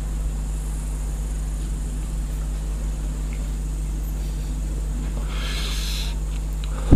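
A steady low hum, with a short breathy hiss of a smoker exhaling about five seconds in.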